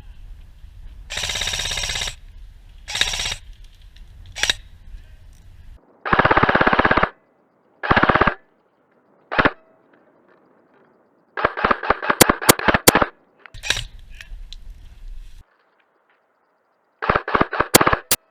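Airsoft guns firing in repeated short bursts of rapid shots, with several separate strings of fire and pauses between them.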